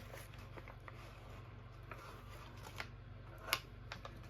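Faint rustling and a few light clicks from handling an MRE food pouch, with one sharper click about three and a half seconds in, over a low steady hum.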